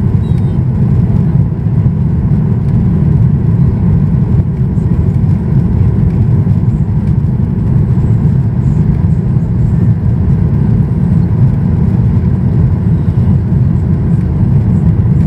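Steady low roar of engine and airflow noise inside the cabin of a Boeing 737-800 in flight, heard from a window seat over the wing, with a faint high whine from its CFM56-7B turbofans.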